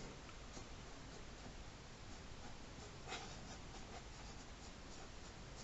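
Faint scratching of an ink pen drawing on paper, in short strokes with small pauses, one stroke a little louder about three seconds in.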